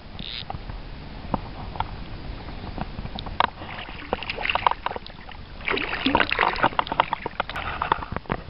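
Hooked trout splashing and thrashing at the surface of the stream close to the landing net: scattered quick splashes that come thick and fast over the last few seconds.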